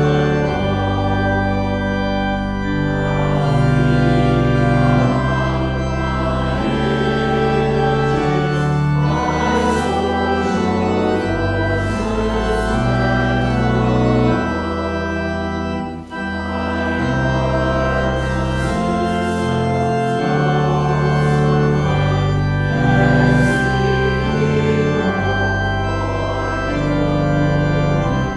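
Church organ playing a hymn tune in slow, held chords, with a short break between phrases about halfway through.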